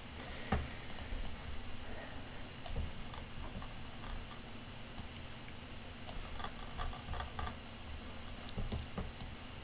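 Sparse clicks from a computer mouse and keyboard, now single, now in small quick clusters, over a faint low hum.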